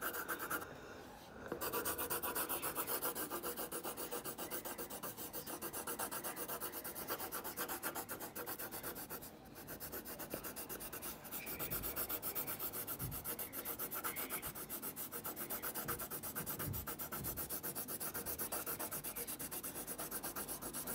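Graphite pencil scribbling on lined notebook paper: rapid back-and-forth shading strokes that keep up steadily, with short breaks about a second in and again near the middle.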